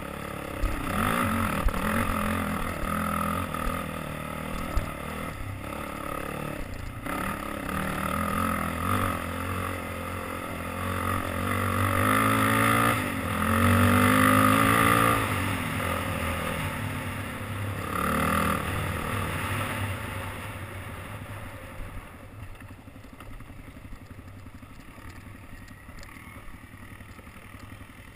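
Sport quad (ATV) engine under way on a dirt trail, revving up and down with the throttle, loudest about halfway through, then easing off to a quieter, steadier drone for the last several seconds.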